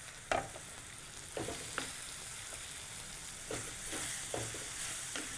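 Boiled pieces of tender jackfruit being stirred into sizzling masala in an earthenware pan with a wooden-handled ladle: a steady soft sizzle broken by about six scrapes and knocks of the ladle against the clay pot.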